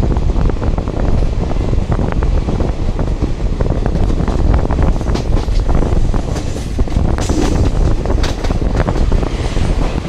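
Express train coach running at speed, a steady loud rumble of wheels on the rails with wind buffeting the microphone. Rapid clicks and clatter from the wheels crossing rail joints come thicker around the middle.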